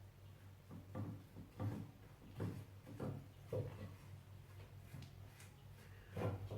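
Cheap paint brush dabbing and stroking water-based paint stripper onto a painted rim lock: about five soft strokes in the first few seconds, then a pause and one more near the end.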